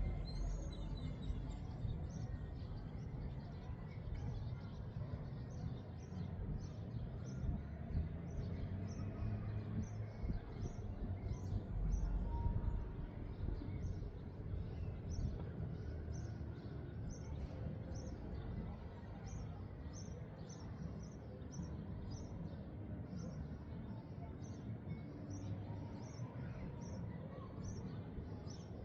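Wind rumbling on the microphone, gusting louder about twelve seconds in. Over it, a high thin chirp repeats evenly about twice a second.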